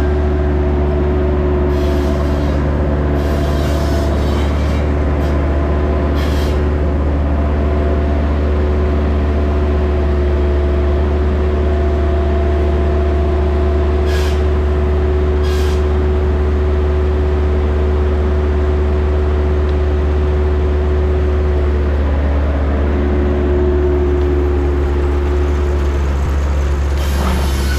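Steam-engine-driven sawmill running: a loud, steady low rumble with a held tone over it, and a few short sharp knocks in the first half.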